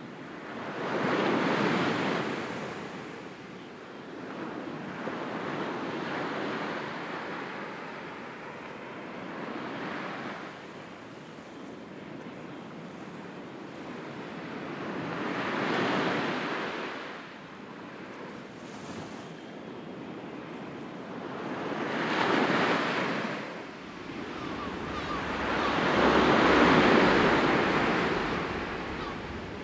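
Sea waves surging in and drawing back, each swell of surf building and fading every four to six seconds, the largest one near the end.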